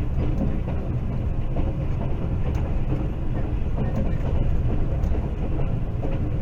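A moving train running on the rails: a steady low rumble with light scattered clicks and rattles.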